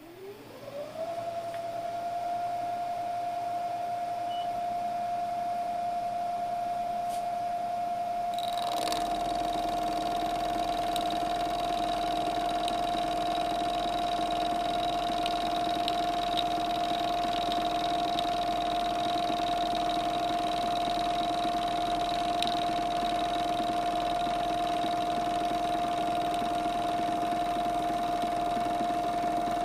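Milling machine spindle spinning up with a rising whine that settles to a steady pitch within about a second. About eight seconds in a click sounds and a second, higher whine joins as the corner rounding end mill starts its light finishing pass along the plate's edge.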